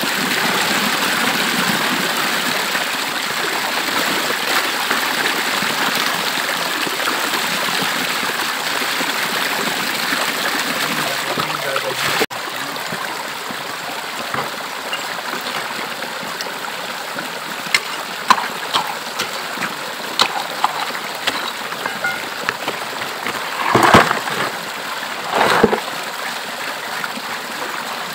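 Steady rushing of a shallow rocky stream. About twelve seconds in it drops a little quieter, and scattered clicks and knocks of stones and gravel being dug out by hand and dropped into a plastic bucket come over it, loudest twice near the end.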